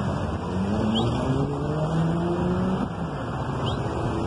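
A vehicle engine speeding up, its pitch rising over about two seconds and then falling away just before three seconds in, over a steady noise of traffic and wind.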